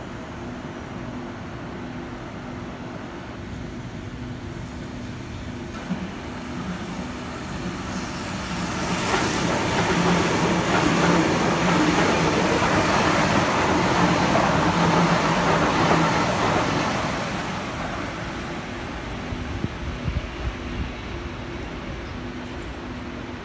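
Sydney Trains double-deck electric train passing along the platform: its running noise builds over a few seconds, stays loud for about eight seconds, then fades away. A steady low hum runs underneath, and a few sharp clicks come near the end.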